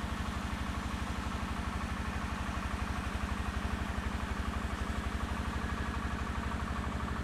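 Scout T-12 mini tractor's single-cylinder diesel engine running steadily under tilling load, with an even, rapid chugging beat.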